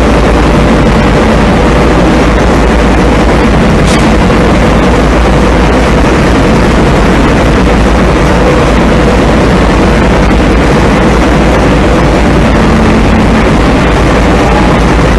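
Industrial vacuum cleaner running steadily at full suction while its floor nozzle picks up powder from a concrete floor: a loud, even rush of motor and air with a faint steady hum under it. A single click about four seconds in.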